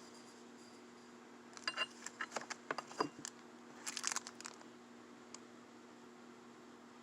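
Small metal engine parts clicking and clinking against each other, with crinkling like a parts bag being handled, in a short flurry a second and a half in that lasts about three seconds; a steady low hum underneath.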